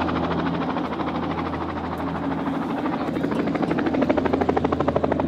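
A nearby aircraft running: a fast, even pulsing beat over a low steady hum, growing louder about four seconds in.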